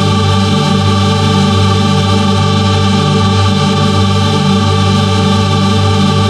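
A digitally processed sound effect built from many layered copies of a sound: a loud, dense, choir-like chord of held tones with a low end that throbs unevenly. It keeps going without a break.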